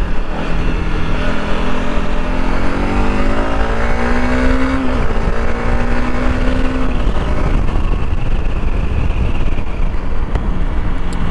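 Honda CRF300L Rally's single-cylinder engine accelerating in third gear, its note rising for about five seconds, dipping briefly, then holding steady. Around seven seconds in the engine tone fades under heavy wind rush.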